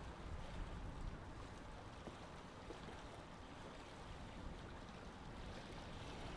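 A steady, low rushing noise with no clear pitch or rhythm, and a few faint ticks.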